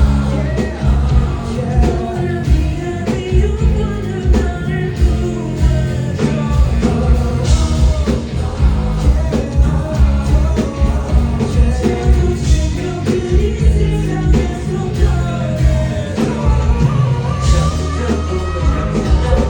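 Live rock band performing with sung vocals over heavy bass and drums, with bright crashes about every five seconds.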